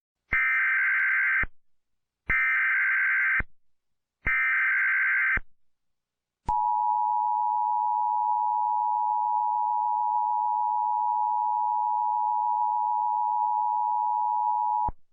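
Emergency Alert System warning tones: three one-second bursts of screeching data-header noise about a second apart, then the steady two-tone attention signal held for about eight seconds and cut off abruptly.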